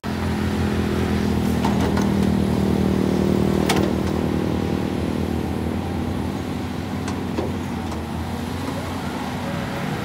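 Caterpillar 320D hydraulic excavator's diesel engine running steadily while the machine works, with a few sharp metallic clanks; the loudest is about halfway through.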